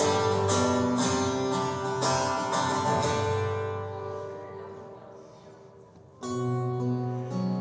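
Gibson acoustic guitar strumming chords during a sound check of its gain. The chords ring out and fade for a few seconds, then the strumming starts again near the end.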